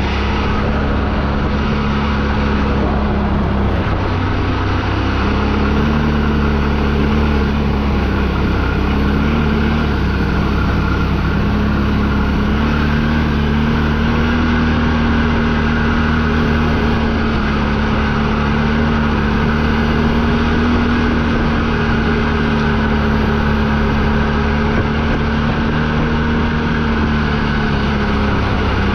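ATV engine running steadily while riding a trail, its pitch wavering slightly up and down with small changes in throttle.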